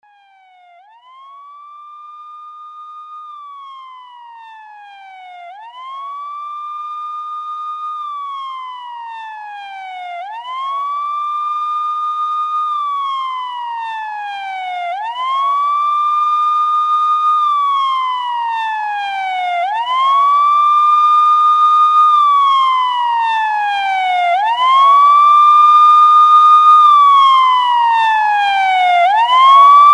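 Escort vehicle's electronic siren wailing in slow cycles. Each one rises quickly, holds, then falls slowly, about every five seconds, and the siren grows steadily louder.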